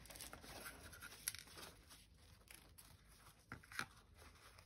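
Faint paper-towel rustling and a few small clicks as a stuck watercolour paint-tube cap is gripped through the towel and twisted; the sharpest click comes near the end.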